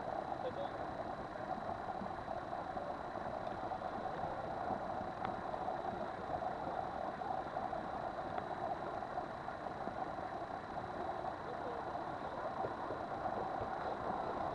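A boat underway at sea: its engine running steadily, with water and wind noise rushing past the bow.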